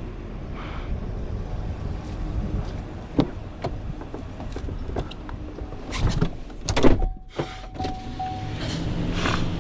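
Roll-off dumpster truck's engine running, heard from the cab, with scattered clicks and knocks and a short steady electronic tone near the end.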